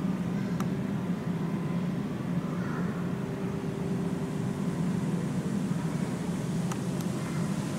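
A steady low mechanical hum with a faint held tone in the middle, and a few faint clicks, one near the start and two near the end.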